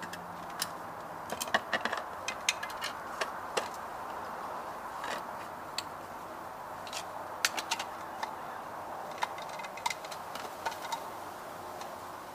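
Irregular hard plastic clicks and knocks as clear filter housings of a two-stage sediment and DI resin water filter are handled and screwed onto the filter head, over a steady background hiss.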